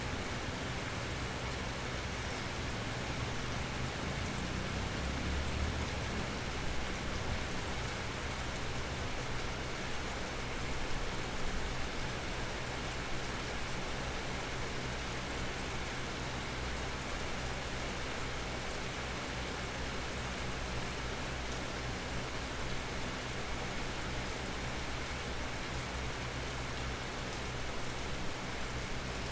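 Steady natural rain falling on the leaves of an almond tree, an even hiss of drops, with a faint low rumble swelling briefly about five seconds in.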